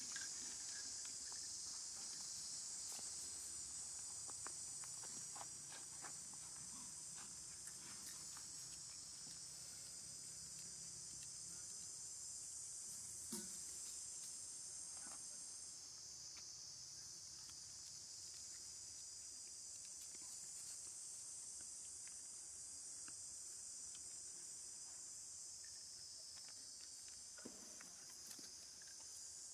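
Steady, high-pitched chorus of insects droning in the forest, with scattered faint clicks and rustles.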